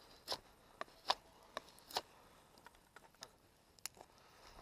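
A run of irregular sharp clicks and taps, about one every half second, loudest about a second in and sparser in the last two seconds.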